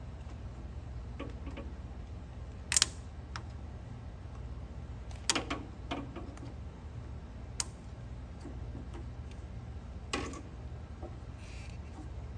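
A handful of sharp, scattered clicks and taps, about five, from tools and parts being handled during lawnmower repair, over a faint steady low hum.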